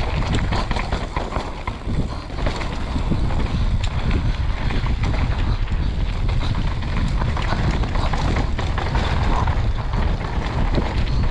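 Mountain bike ridden fast down a dirt and gravel trail: wind buffets the camera microphone with a steady rumble, and the tyres and bike chatter over the rough ground with many small clicks and knocks.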